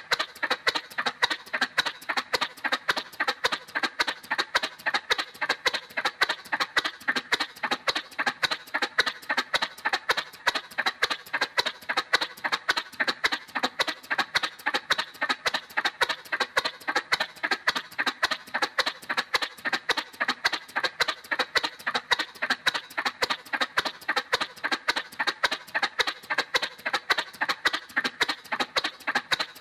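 Cartoon motorcycle sound effect: a steady putt-putt of short, even pulses, about four a second, that never changes pace.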